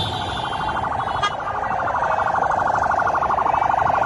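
Siren of a convoy escort vehicle in a fast, rapidly pulsing warble, growing louder over the first couple of seconds and then holding steady. A single short click sounds about a second in.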